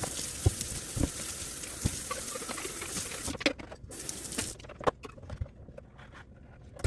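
Water running from a kitchen tap into the sink during washing-up, with scattered knocks of items being handled. The water stops about three seconds in, leaving irregular clunks and clicks.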